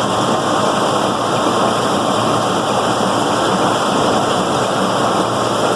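New Idea pull-type corn picker running behind a John Deere 6400 tractor, picking cob corn: a loud, steady, dense machine noise with no distinct beat.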